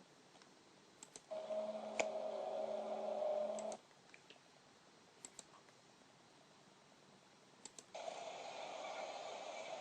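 Pairs of sharp clicks, each pair followed by a short audio clip starting and stopping. About a second in, a steady hum with several tones runs for roughly two and a half seconds and cuts off suddenly. Near the end, after another pair of clicks, a noisier rushing sound begins.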